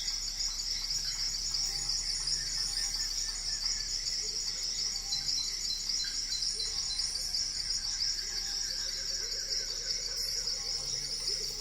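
A steady, high-pitched drone from a chorus of insects, with faint, soft music beneath.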